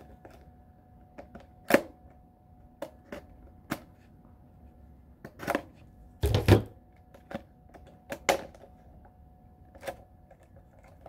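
Scissors snipping and cracking through a stiff clear plastic clamshell package: about a dozen sharp, irregular clicks and crackles of plastic. The loudest, a little past the middle, comes with a dull knock.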